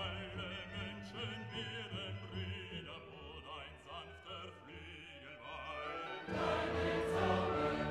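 Background music with wavering sung voices, which turns louder and fuller about six seconds in.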